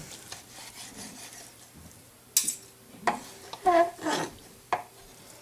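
Kitchen knife sawing back and forth through a pizza with a ground-beef crust, the blade rasping through the meat and scraping on a wooden cutting board. There is one sharp scrape about two and a half seconds in.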